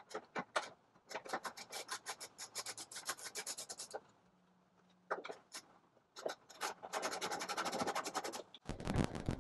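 Hand socket ratchet clicking rapidly in two runs as it backs out the 12 mm bolts of a liftgate strut's upper mount, with a pause between them. A louder rattle starts near the end.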